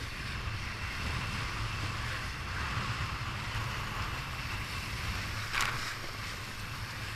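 Wind buffeting the microphone over a steady rushing hiss of water and spray along the hull of a Laser 2 sailing dinghy moving fast, with a brief sharper rush a little over halfway through.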